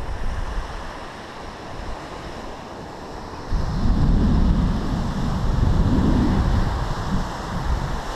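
Wind buffeting the microphone on an open beach over the steady wash of surf, with the rumble swelling louder for a few seconds past the middle in two gusts.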